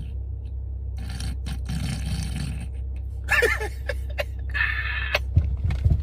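Rasping snoring sounds from a person: one long snore about a second in, then short grunting vocal noises and a hissing breath later on, over a steady low hum.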